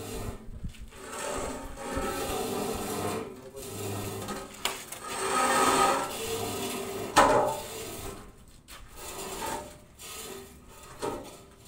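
A steel stand scraping and rubbing on a concrete roof slab as it is dragged and set against a pillar, in irregular stretches, with one sharp metal clank about seven seconds in.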